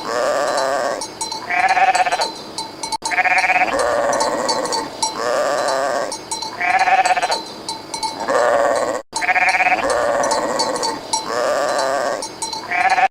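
Sheep bleating over and over, one wavering call after another with short gaps between them.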